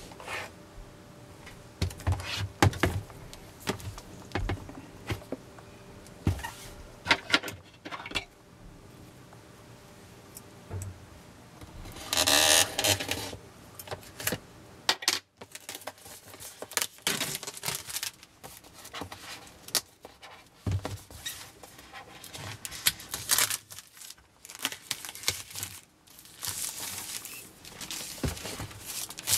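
Hands handling and unwrapping a cardboard iPad box: scattered taps and knocks of the box against the desk, a longer rustling tear about twelve seconds in as the plastic wrap comes off, and the rubbing of the lid sliding off near the end.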